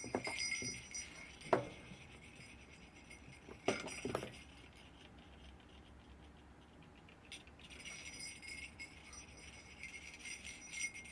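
Sleigh bells jingling and clinking as they are handled, with a few sharper clinks, the clearest about a second and a half and about four seconds in.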